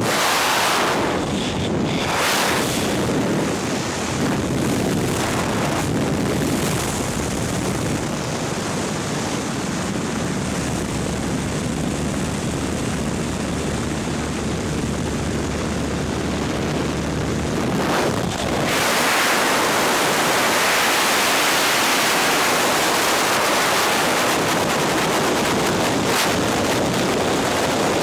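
Light aircraft's engine droning steadily with rushing air at the open jump door; about 18 seconds in the drone drops away and gives way to loud, even wind rushing over the microphone as the tandem pair leaves the plane and falls free.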